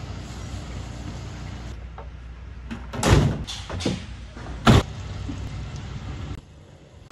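Rear cargo doors of a Chevrolet van being slammed shut: a loud slam about three seconds in, a few lighter knocks, then a second sharp slam just before five seconds.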